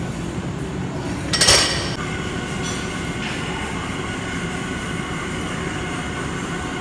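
Steady hum and rumble of gym background noise, with one sharp metallic clank about a second and a half in.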